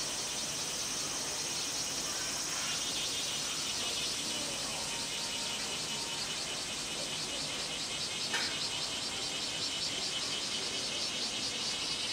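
Chorus of cicadas buzzing steadily, a high, finely pulsing drone. One faint click sounds about eight seconds in.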